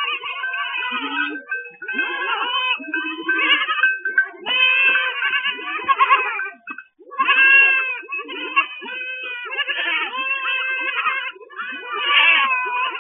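A herd of goats bleating, many calls overlapping one after another almost without pause.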